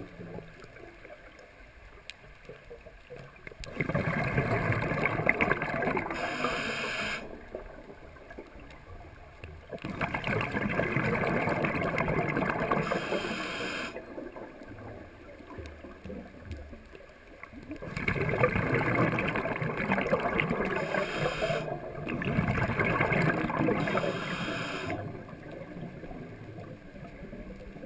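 Scuba diver's regulator breathing underwater: four long bursts of rushing, bubbling exhaust, each about three seconds, with quieter gaps between them while the diver inhales.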